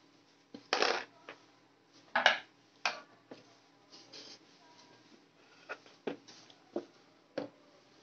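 Clicks and clinks of small metal hardware being handled and set down: hard-drive mounting screws and a screwdriver, with knocks on the DVR's sheet-metal chassis. About eight sharp clicks, the loudest two about one and two seconds in, the rest lighter and spread through the second half.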